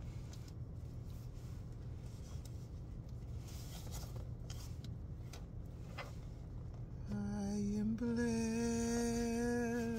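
A low steady background hum, then about seven seconds in a woman's voice holds two long sung notes, the second a step higher than the first.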